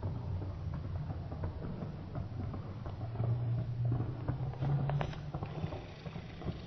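A sprinter's feet striking a synthetic running track at full speed, a rapid patter of footfalls over a steady low rumble. The footfalls grow louder around the middle as the runner passes closest.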